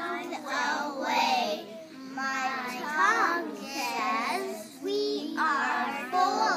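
Kindergarten children chanting a poem together in a sing-song chorus.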